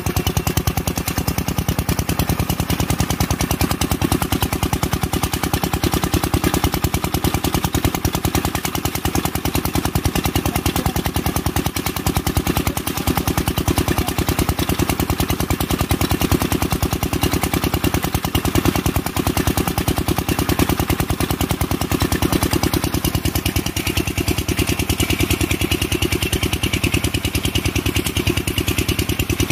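Kirloskar diesel engine running steadily, with an even, rapid firing beat. A higher hiss joins over the last few seconds.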